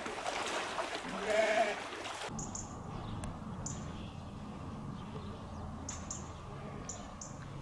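Splashing of people wading through shallow floodwater, with a short high call about a second and a half in. After that come several short, high bird chirps over a low rumble.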